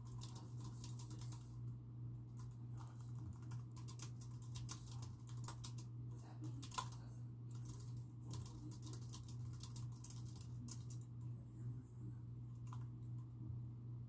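Typing on a computer keyboard: quick runs of keystrokes, one sharper key hit about halfway through, thinning to a few taps near the end. A steady low hum runs underneath.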